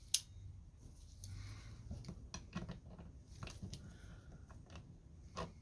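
Mole grips (locking pliers) snapping shut on a seized steel stud with one sharp click just after the start, followed by faint scattered small clicks and scrapes of metal tools being handled.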